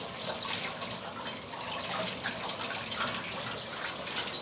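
Tap water running into a stainless-steel kitchen sink while dishes are rinsed by hand, a steady hiss.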